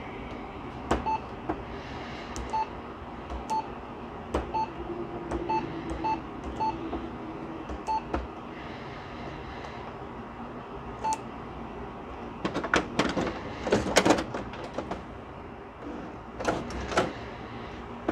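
Canon inkjet printer's control panel giving short, identical beeps as its touchscreen buttons are pressed, about nine over the first eleven seconds, each with a light click. Then plastic knocking and rattling of the printer's casing as it is handled, loudest a little past the middle and again near the end.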